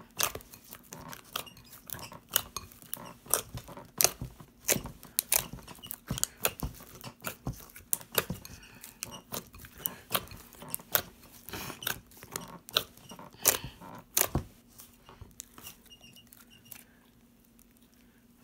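Homemade glue slime being squeezed and poked by hand, giving a rapid, irregular run of wet clicks and pops that thins out to a few faint ones about fourteen seconds in.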